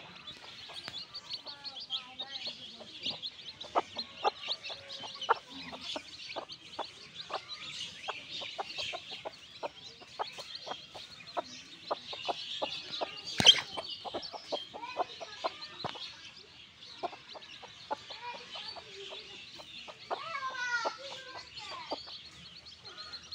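Chickens clucking in short repeated calls, with chicks peeping in a high, steady twitter. There is one loud sharp knock about halfway through.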